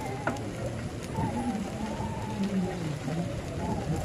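A faint, distant voice in long, wavering tones, heard over wind and rolling noise from the bike ride.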